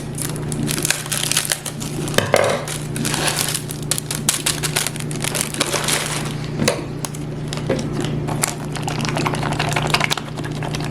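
Plastic salad-kit bag and packets crinkling and rustling as they are handled and torn open, in dense irregular crackles, with a steady low hum underneath.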